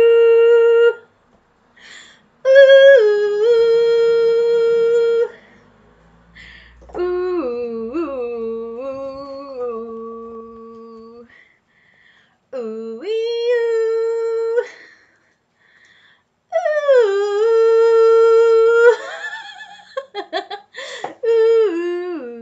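A woman humming and singing a TV show theme tune without words, in about five phrases of long held notes with short pauses between, the notes quicker and more broken near the end.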